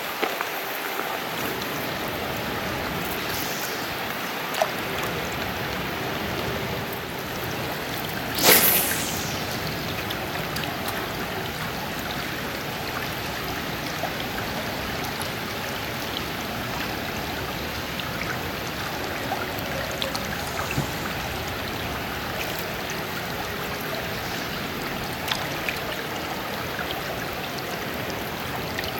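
Steady rush of river water running, with one sudden loud burst about eight and a half seconds in.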